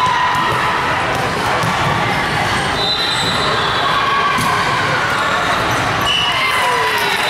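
Busy indoor sports hall during volleyball play: a steady din of distant voices and activity on the courts, with balls bouncing and short high squeaks from shoes on the court floor.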